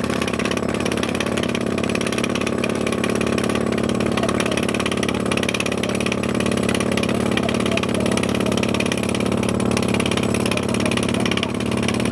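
Water-well drilling rig boring at full power: a steady engine drone with a fast, even rattle and a hiss of air blowing the cuttings out of the borehole.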